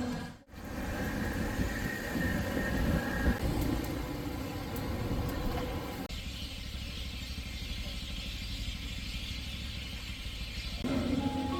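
Outdoor street ambience: a steady low engine rumble with background noise.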